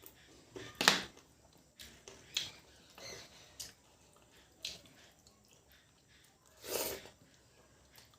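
Close-miked eating sounds: wet chewing and smacking of mutton curry and rice, in scattered short bursts, the loudest about a second in and a longer one near seven seconds.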